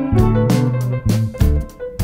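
Background music: a guitar-led instrumental with bass notes and a steady beat.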